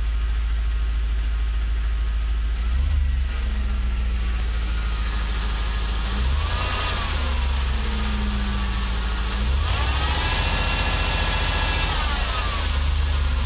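Audi RS6 C5's 4.2-litre twin-turbo V8 running, revved up three times from idle, each time rising, holding a few seconds and falling back.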